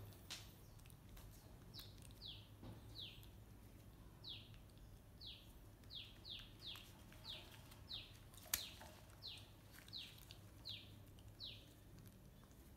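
A faint run of about fifteen short, high chirps, each falling in pitch, repeated irregularly one or two a second, starting about two seconds in. A single sharp click comes about two-thirds of the way through.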